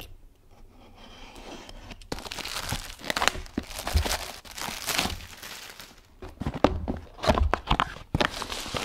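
Plastic shrink wrap being slit with a knife and torn off a cardboard graphics card box, crinkling and crackling, with the loudest crackles near the end as the box is opened.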